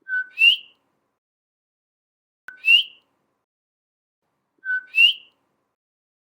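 Coqui frog calling its two-note "co-qui" three times, about two seconds apart: each call is a short steady lower note followed by a louder, higher rising whistle.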